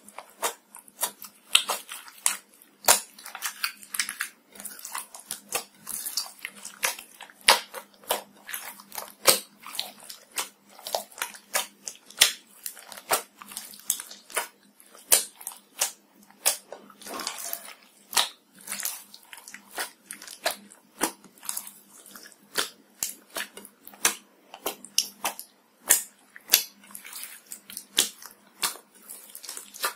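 Sticky slime mixed with glitter and small beads being squeezed and kneaded by hand: a continuous, irregular run of wet clicks and pops, several a second.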